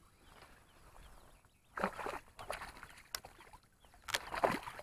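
A hooked largemouth bass splashing at the water's surface beside a kayak as it is played in, in two short bursts of splashing, the second near the end.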